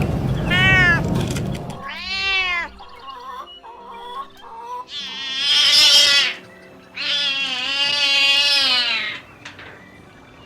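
Kitten meowing repeatedly: two short meows in the first few seconds, then a loud, high meow about five seconds in and a long, drawn-out meow about seven seconds in.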